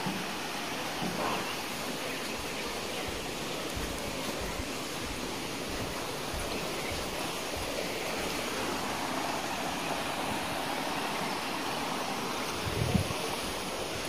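Steady rushing of flowing water, as from a stream or waterfall. There is a brief low bump near the end.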